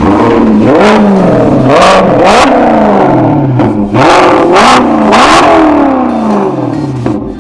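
Maserati GranTurismo V8 engine being revved in a quick series of throttle blips, about eight or nine in all, the pitch rising and dropping back with each.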